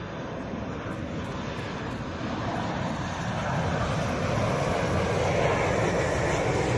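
Jet aircraft flying low overhead: a steady engine rush that grows gradually louder as the aircraft come nearer.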